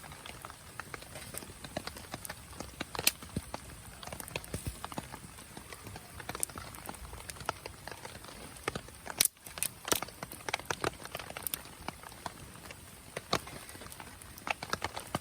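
Wood campfire crackling: irregular sharp pops and snaps over a faint steady hiss, with a louder pop about 3 seconds in and a cluster of loud snaps about 9 seconds in.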